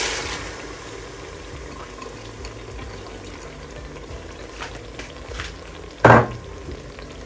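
Soaked red lentils (moong and masoor dal) poured from a bowl into hot tomato-onion masala in a pressure cooker, the oily masala sizzling and bubbling steadily around them. A single sharp knock about six seconds in.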